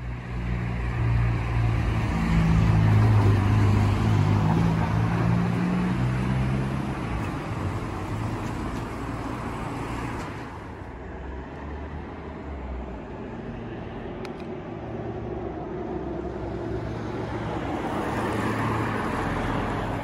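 Road traffic passing close by: a vehicle's engine hum with tyre noise, loudest in the first few seconds, easing off about halfway through, then swelling again as another vehicle approaches near the end.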